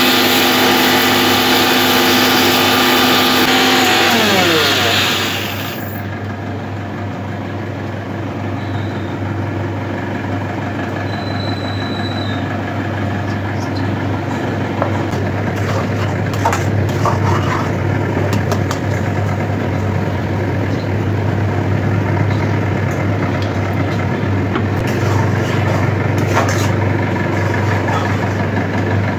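Bajaj Rex 500 mixer grinder motor running steadily at high speed, then switched off about four seconds in, its pitch falling as it winds down. After that a quieter steady low hum with scattered light clicks.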